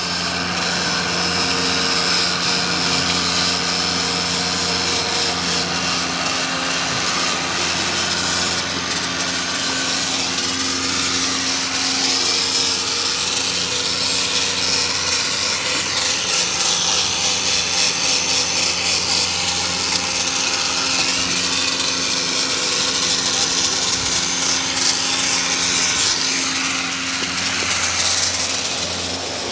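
A power tool running steadily and cutting into the wood of a duối (Streblus asper) bonsai stock: a rasping grind over a steady motor hum, turning into a faster chatter from about nine seconds in.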